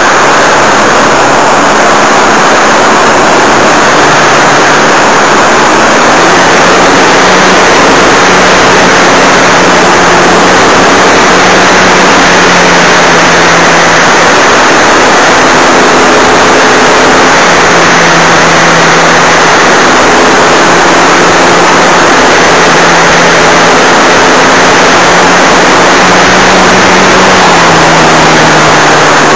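Model airplane's motor and propeller heard from the aircraft itself in flight: a loud, steady rushing drone whose pitch steps up and down a little with the throttle.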